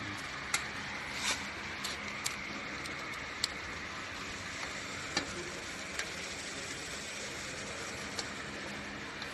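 Scattered light metallic clicks and taps as a Shimano rear derailleur and a tool in its mounting bolt are handled against the bicycle frame, over a steady background hiss.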